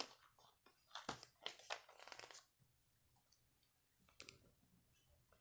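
Paper pages of a thin picture book being turned and handled: short rustles and crinkles, a cluster in the first two and a half seconds and one more about four seconds in.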